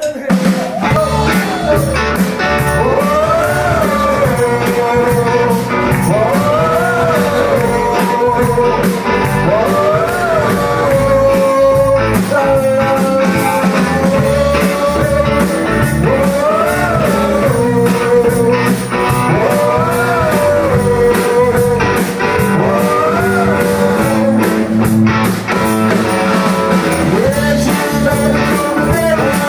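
Live blues-rock band playing loudly: electric bass, electric guitar and drum kit, with a blues harmonica played through the vocal mic. The harmonica line rises and falls in a phrase that repeats about every three seconds.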